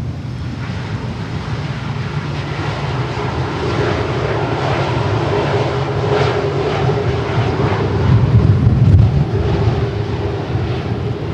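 Airbus A330-900 jet engines (Rolls-Royce Trent 7000) running loudly: a deep rumble with a steady drone, crackling in the middle and swelling to its loudest a little over two-thirds of the way through before easing.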